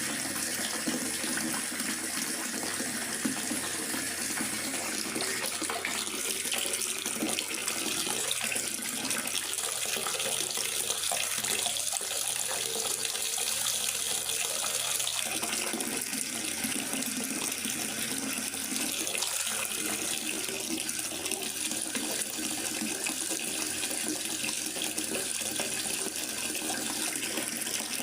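Steady rain falling in a forest, an even, continuous hiss of water with no distinct drops or breaks.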